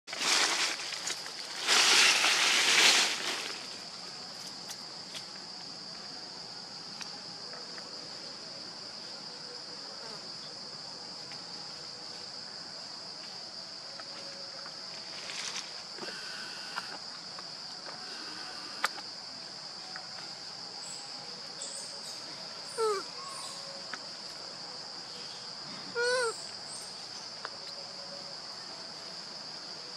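Steady high-pitched drone of insects. A burst of loud rustling fills the first three seconds, and two short squeaks falling in pitch come about three seconds apart late on.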